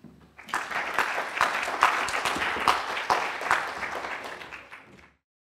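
Audience applauding at the end of a talk, starting about half a second in, fading and then cutting off suddenly near the end.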